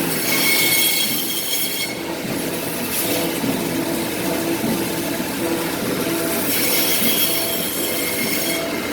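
Automatic frozen-meat slicer running, its blades shaving frozen beef into rolls with a steady mechanical noise. A high-pitched screech rises over it for about two seconds at the start and again for about two seconds near the end.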